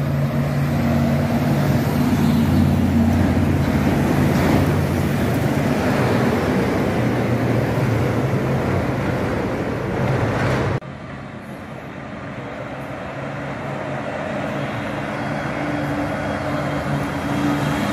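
Car and truck engines running as several vehicles drive along a city street, steady engine tones over road noise. About eleven seconds in the sound cuts abruptly to a quieter stretch, and the engine noise builds again toward the end.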